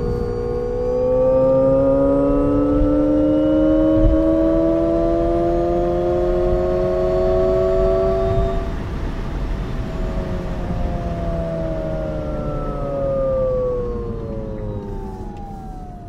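Alpine A290 electric hot hatch's synthesized "Alternative Sound" drive sound: a stack of tones rising in pitch for about eight seconds as the car accelerates, then falling as it slows, over steady tyre and road noise.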